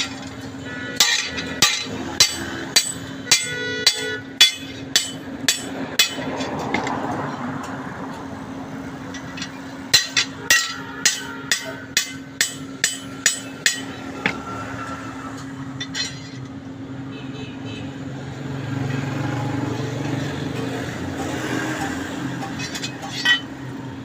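Blacksmith's hammer striking the steel blade of a toka fodder-cutter, at about two ringing blows a second, in two runs of roughly ten and eight blows, with a steady hum underneath.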